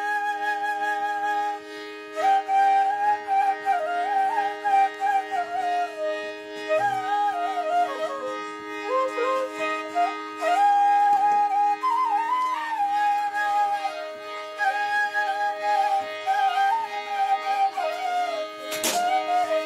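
Background music: a bamboo flute melody over a steady drone, in an Indian classical style. A short sharp hit or transition sound near the end.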